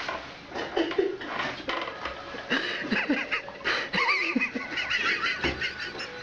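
People laughing, with short wavering high-pitched calls in the middle and scattered clicks and knocks.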